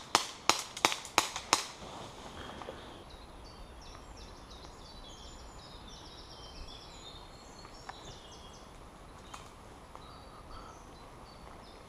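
Airsoft gun firing five sharp shots in quick succession, about three a second, in the first two seconds. Then birds chirping faintly in the background.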